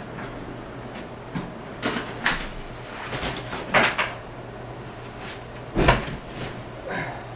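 A series of knocks and clicks as a hotel room door swings shut and a rolling suitcase is brought in, then a heavy thump near six seconds in as a person flops onto the bed. A steady low hum runs underneath.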